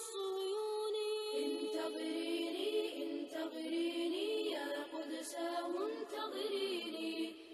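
An a cappella nasheed: voices singing long, gliding melodic lines with no instruments, a second held vocal part joining underneath about a second in.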